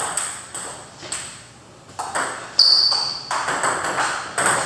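Table tennis balls clicking off paddles and tables in rallies, sharp hollow ticks at an uneven pace with a quieter gap of about a second near the middle. One brief high squeak about two and a half seconds in is the loudest sound.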